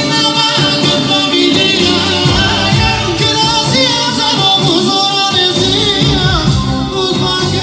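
A live Balkan Roma dance band plays over the PA, with a singer over keyboard and a steady, driving drum beat.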